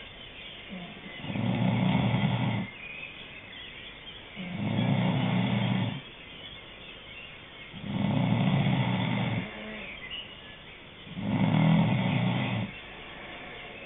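Snoring in a steady rhythm: four long snores about three seconds apart, each lasting about a second and a half, with quieter breathing between them.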